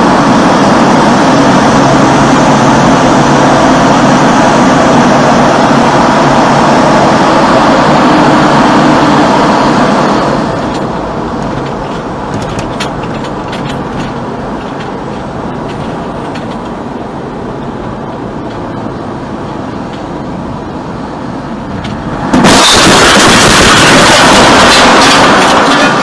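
Loud, steady tyre and road noise inside a vehicle driving through a road tunnel, dropping to a quieter engine and road hum about ten seconds in as it leaves the tunnel. Near the end a sudden, very loud harsh noise lasts about three and a half seconds and cuts off sharply: a car crashing and sliding at the toll plaza ahead.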